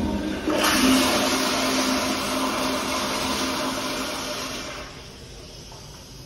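Commercial wall-hung toilet with a flushometer valve flushing: a loud rush of water with a steady tone running through it. It tapers off and drops away about five seconds in, leaving a faint hiss.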